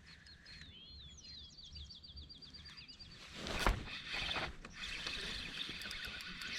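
A songbird sings a rapid, even trill of repeated high notes. About halfway through comes a sharp knock on the kayak, followed by a steady hiss with light ticking.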